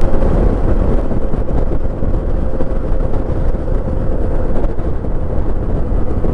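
Yamaha XT660Z Ténéré's single-cylinder engine running at steady cruising speed, with a steady low drone and a rush of riding wind across the microphone.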